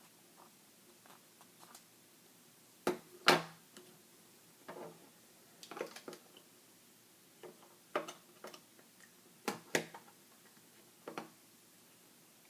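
LEGO plastic bricks being handled and pressed together: a string of irregular clicks and taps, the loudest about three seconds in.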